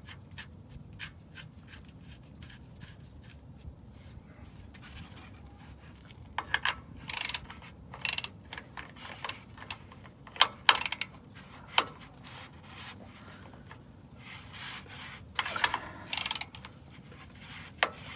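Socket ratchet clicking as the rear differential fill plug is tightened: faint ticks at first, then from about six seconds in several short rasping bursts of ratchet clicks, the loudest near the end.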